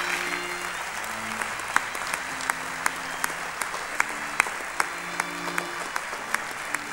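Audience applauding steadily, with a few louder single claps standing out.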